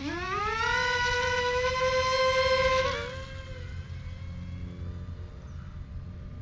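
Electric motor and propeller of a small Volantex P-51D Mustang RC plane whining as it spins up. The pitch rises over about a second and then holds steady. About three seconds in it falls off sharply, and a fainter whine carries on.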